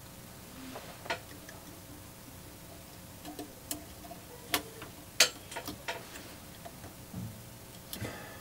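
Scattered small sharp clicks and ticks, about a dozen at uneven intervals, from an axial capacitor's wire leads being bent and pushed into the eyelets of a tube-amp eyelet board.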